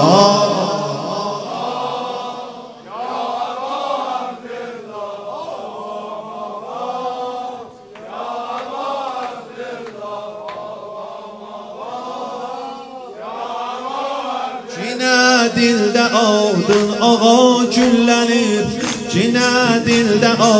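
A crowd of men chanting a slow Azerbaijani Shia mourning lament (noha) refrain in unison. About fifteen seconds in it grows louder and a steady rhythm of sharp beats joins in, the mourners striking their chests (sineh-zani) in time.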